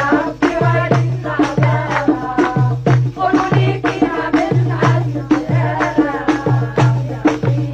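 Traditional Algerian msamaâ wedding music: women singing to a frame drum beating a steady rhythm, with a jingling, rattle-like edge to the percussion.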